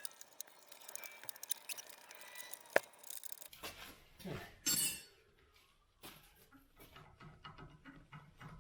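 Faint metallic clicks and clinks of a wrench on the bracket bolts as they are tightened, with one sharp click about three seconds in.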